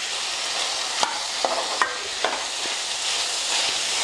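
Field beans, potato and tomato sizzling in oil in a pan with a steady hiss, while a metal ladle stirs them, knocking against the pan about five times between one and three seconds in.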